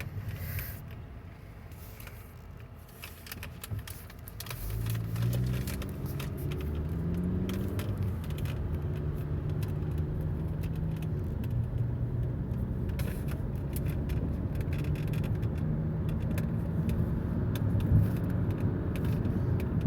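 Car running, heard from inside the cabin: quieter for the first few seconds, then the engine note rises as the car speeds up about four seconds in and settles into a steady cruising drone with road noise. Scattered light ticks run through it.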